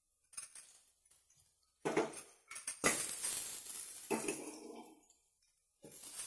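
Metal spoon clinking and scraping in a steel pot of frying onions, then hot oil sizzling from about three seconds in, as ginger-garlic paste goes into the oil. The sizzle stops briefly and returns louder near the end.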